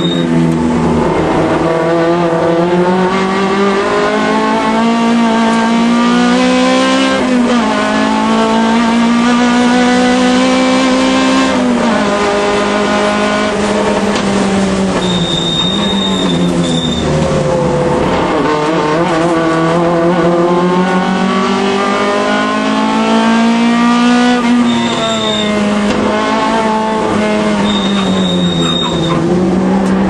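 Alfa Romeo race car's engine heard from on board under hard driving. The pitch climbs and drops repeatedly as it shifts gears, falls away as it brakes for corners and pulls up again. Short high tyre squeals come three or four times in the corners, the first about halfway through.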